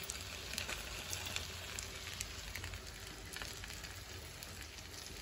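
Masala-coated fish pieces shallow-frying in oil, sizzling steadily with scattered faint crackles.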